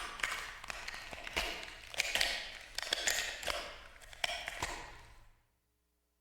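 A run of irregular sharp knocks and clicks over a scraping, rattling noise, lasting about five seconds and dying away near the end.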